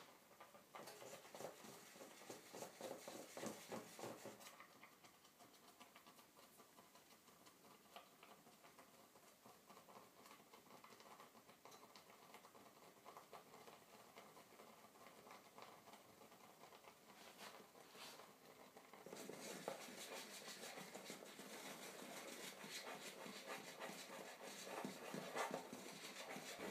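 Faint patter of light clicks and rustles from a cat on a kitchen counter, in two stretches with a quieter spell between.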